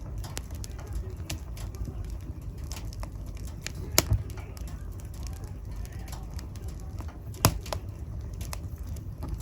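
Wood fire burning in a fireplace: a steady low rumble of flames with scattered small crackles, and two loud sharp pops, about four seconds in and again about three and a half seconds later.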